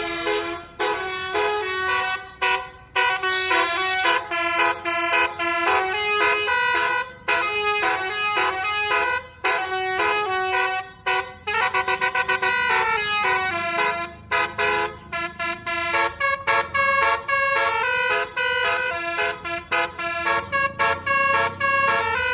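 A bus's telolet basuri multi-tone air horn playing a quick melody, its notes changing several times a second with short breaks between phrases.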